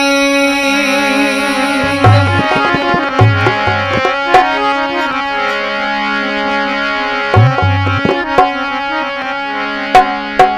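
Instrumental interlude of a devotional bhajan: steady held melody notes over scattered deep hand-drum strokes and a few sharp percussion clicks, with no singing.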